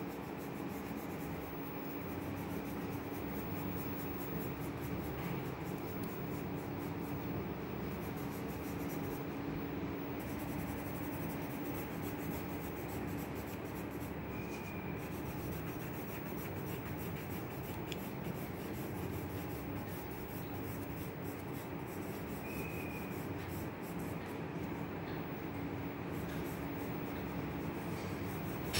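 Graphite pencil shading on sketchbook paper: a continuous scratchy rubbing of quick strokes, over a faint steady low hum.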